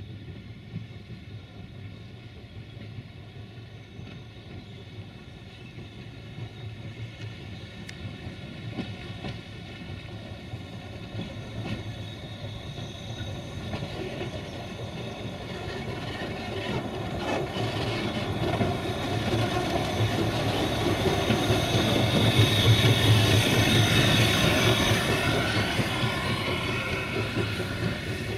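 Narrow-gauge steam locomotive 764.408 shunting with its wagons, drawing closer and passing. Wheels clatter over the rail joints and steam hisses from the cylinder cocks, growing louder to a peak about three quarters of the way through, then easing a little.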